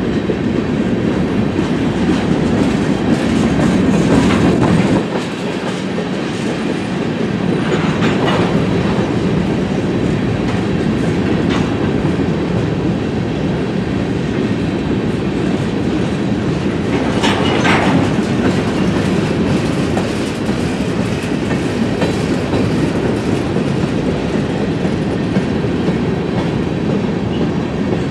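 Covered hopper cars of a Union Pacific freight train rolling past: a steady rumble of steel wheels on the rails with clickety-clack over the joints, and two brief higher-pitched squeaks from the wheels partway through.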